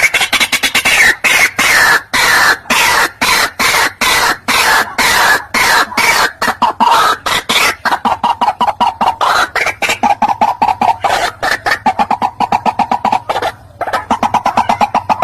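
White-breasted waterhen calling: a long, unbroken run of rapid, harsh repeated notes, several a second, with a brief pause near the end.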